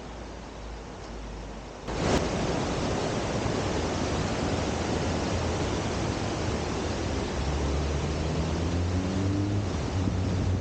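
Steady rushing of a fast mountain stream, which gets suddenly louder about two seconds in. From about seven seconds a low engine hum joins it, with a faint tone rising in pitch.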